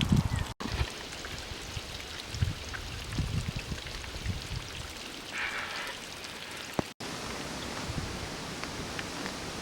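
Steady rushing of flowing water, with scattered low rumbles and a brief buzzy sound about five and a half seconds in. The sound cuts out for an instant twice.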